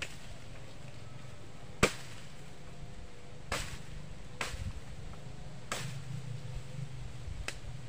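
Machete chopping at wood: five sharp strokes at uneven gaps of one to two seconds, the first, about two seconds in, the loudest.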